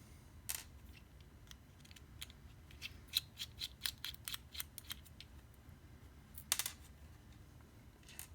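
Small clicks of a screwdriver working the tiny bottom-plate screws of a vape mod: a single click about half a second in, then a run of quick light ticks, about five a second for two seconds, and a short clatter near the end.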